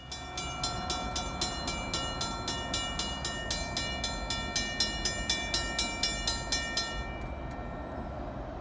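Railroad grade-crossing warning bell ringing at about four strokes a second, then stopping abruptly about seven seconds in, as crossing bells do once the gates are down for an approaching train. A low steady rumble runs underneath.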